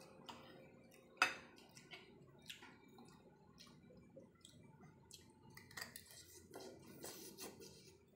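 Metal fork and spoon clinking and scraping against a ceramic plate of ramen noodles, with one sharp clink about a second in and a run of small clicks. Noodles are slurped and chewed near the end.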